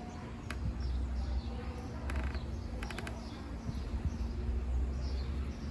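Small birds chirping repeatedly in short high calls, over a steady low rumble, with a few sharp clicks about two to three seconds in.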